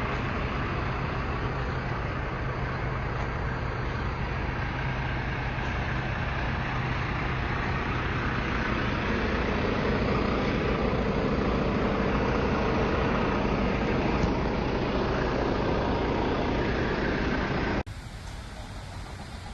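Semi truck running, a steady engine drone mixed with road noise. About eighteen seconds in it cuts off abruptly to a quieter, different background.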